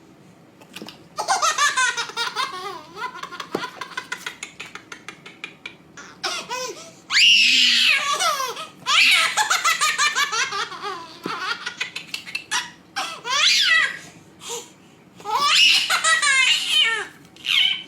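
A baby laughing in repeated fits of high-pitched belly laughter, bout after bout with short breaks between.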